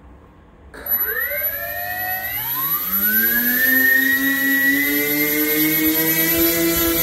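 The two electric motors of a VQ Models Twin Otter RC model spinning up their propellers: a whine sets in suddenly about a second in and rises in pitch, the second motor joins and climbs a moment later, and both settle into a steady high whine with a thin high-pitched tone above.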